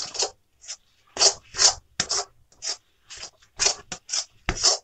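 Semolina dough being stirred and scraped around a kadhai, with repeated short scraping strokes about two a second. The water has cooked off and the dough is being worked in a little oil.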